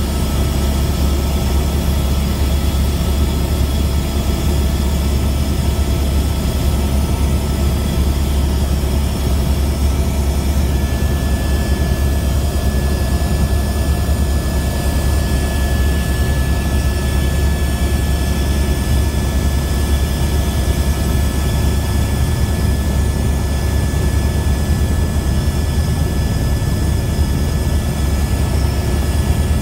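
Aircraft cabin noise on final approach: the engines' steady loud low drone heard from inside the plane, with a thin steady high tone joining about ten seconds in.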